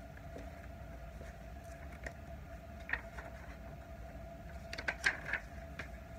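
Quiet room tone: a low steady hum with a faint steady tone, broken by a few soft clicks and taps of handling noise, a cluster of them about five seconds in.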